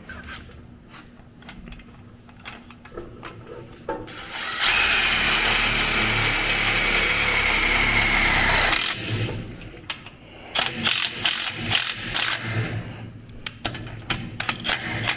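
A handheld power tool's electric motor runs at steady high speed for about four seconds, its pitch sagging slightly as it works. Tool clicks and metal knocks come before and after.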